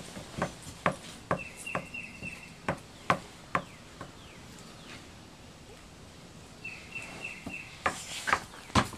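A dog's tail thumping and swishing on wooden deck boards: irregular knocks, about two a second, through the first few seconds, a lull, then more knocks near the end. A short high chirring trill sounds twice in the background.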